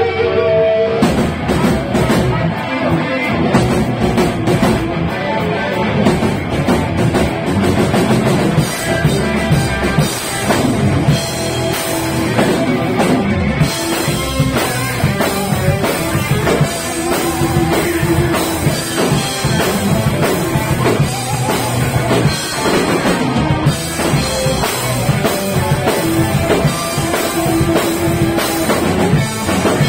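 Heavy metal band playing live: distorted electric guitars over a pounding drum kit with bass drum.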